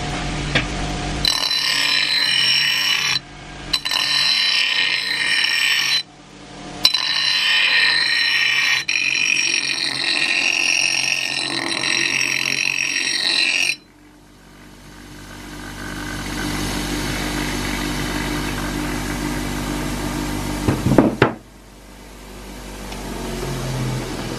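Bench grinder's stone wheel grinding the steel of an old axe head: a loud, high grinding with a few abrupt breaks. About 14 s in the grinding stops and the grinder runs on its own with a steadier, lower whir, broken by a sharp click near the end.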